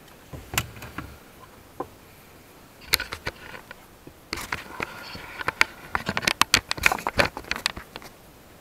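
Handling clatter of plastic and foam trunk trim and tools being moved by hand: a few scattered clicks and knocks, then a dense run of quick clicks and taps over a scraping rustle in the second half.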